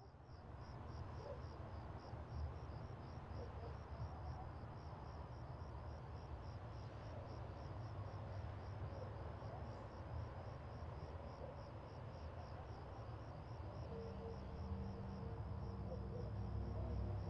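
High, evenly repeated chirps, about three or four a second, over a steady low rumble, fading in at the start. A low held tone comes in near the end.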